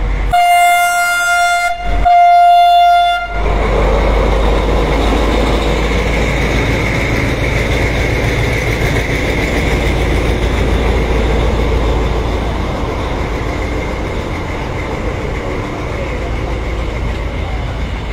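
Diesel locomotive's horn sounding two blasts of about a second and a half each, back to back, followed by the locomotive and its carriages rolling past close by: a steady rumble of wheels on the rails that eases a little towards the end.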